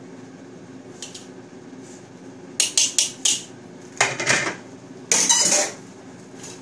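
Tongs clacking against a wok and plate as fried noodles are served: a quick run of sharp clacks about halfway through, then two longer scrapes against the wok.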